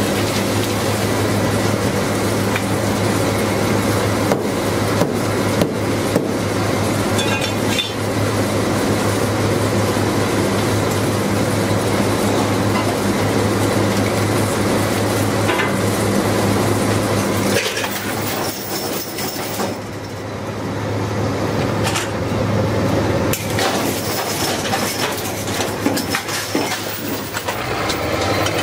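Drilling rig's engine running steadily, with scattered metallic clanks and knocks of pipe tongs and chain working the drill pipe on the rig floor. The engine drone eases for a few seconds past the middle, then comes back.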